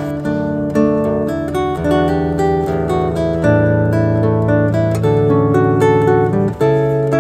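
Background music: an acoustic guitar strumming and picking chords at a steady pace.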